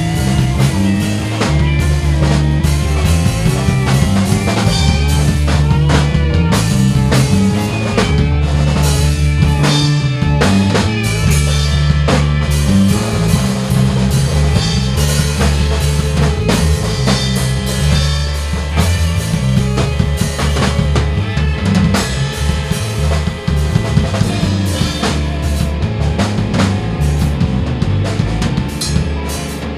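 Rock band music: a drum kit and electric bass line, with electric guitar and electric piano and organ over them.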